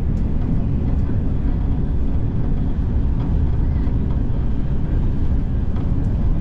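Steady low rumble of a high-speed train running at about 250 km/h, heard from on board, with a few faint clicks.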